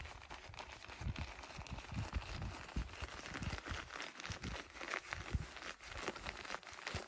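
Nylon pump sack being rolled and squeezed by hand to push air into an inflatable sleeping pad: irregular rustling and crinkling of the fabric, with frequent low bumps from handling.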